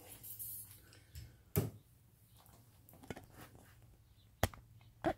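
Handling noise: two sharp knocks about three seconds apart, with fainter clicks and rustling between.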